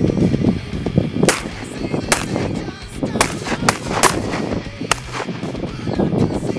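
Six sharp cracks at uneven intervals over a dense, continuous din.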